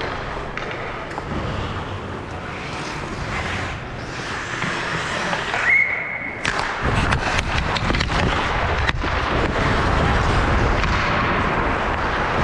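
Ice hockey play: skates scraping on the ice, with a short steady high tone a little before the middle, then a quick run of sharp clacks and knocks from sticks and puck. After that comes a heavier rumbling noise.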